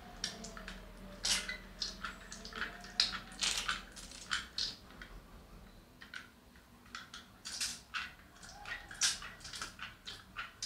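Hand-operated kurdai press (mould) squeezing hot cooked semolina dough out in strands: an irregular string of short clicks and squelching sounds.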